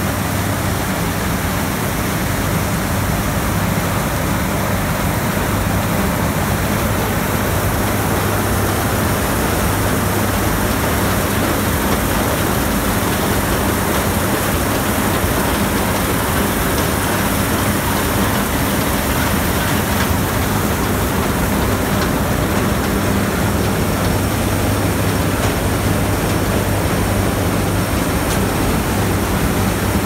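Combine harvester with a MacDon draper header running steadily under load while cutting oilseed rape: a continuous machine drone with a steady low hum.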